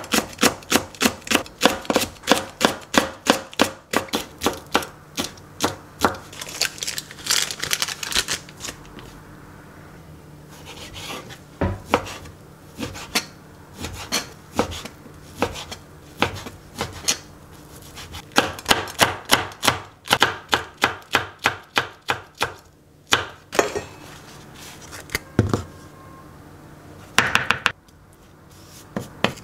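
Kitchen knife chopping on a plastic cutting board: quick, even cuts through a leek at about three or four a second, then slower, more scattered cuts through strips of bacon. A short scraping sound comes near the end.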